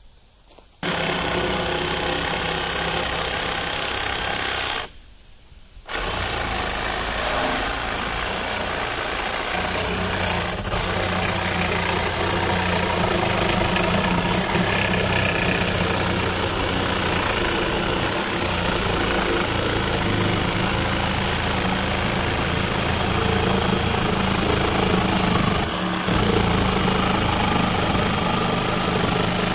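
An engine running steadily. It starts about a second in, drops out for about a second near the five-second mark, then runs on.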